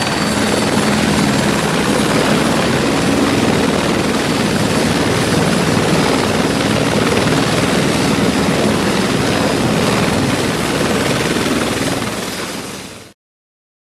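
Airbus AS355 F2R twin-turbine helicopter running loud and steady, rotor and turbine noise together. It fades out shortly before the end and then cuts to silence.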